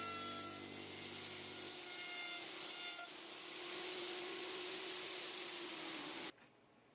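Woodworking router running and cutting wood: a steady motor whine, then a rough cutting noise for about four seconds that cuts off abruptly near the end.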